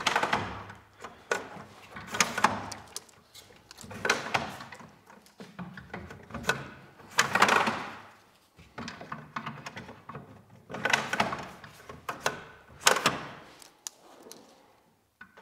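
Black plastic ICF webs for a Nudura One Series form being slid down into the slots of a foam panel and plywood form board: irregular knocks and plastic clacks with short scraping slides, every second or two.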